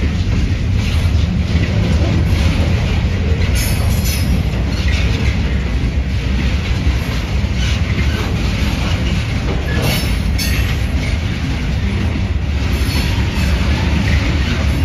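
Freight train's loaded flatcars rolling slowly through a rail yard: a steady low rumble of wheels on track, with brief high-pitched bursts about four and ten seconds in and again near the end.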